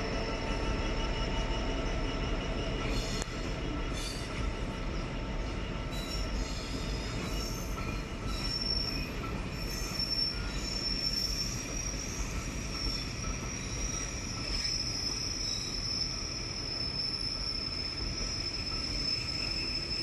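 Train of passenger coaches rolling past on curved track with a steady rumble, the wheels squealing in a thin, high-pitched tone that grows stronger about halfway through.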